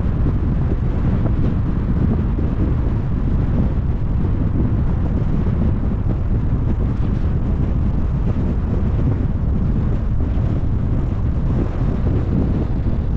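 Steady low rumble of a car being driven: road and wind noise, with wind buffeting the microphone.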